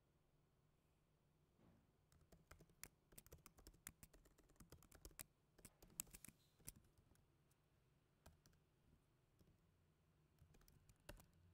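Faint computer keyboard typing: a quick run of keystrokes starting about two seconds in and lasting some five seconds, then a few scattered keystrokes near the end.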